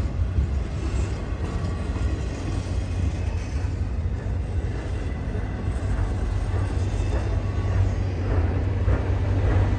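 Freight train rolling slowly past: a steady low rumble, with a few light knocks near the end.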